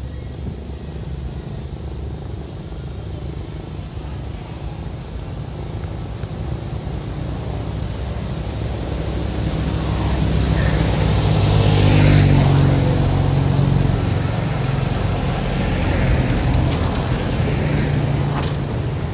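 Road traffic: a motor vehicle's engine grows louder as it passes, loudest about two-thirds of the way through, then fades. A second, smaller swell follows near the end.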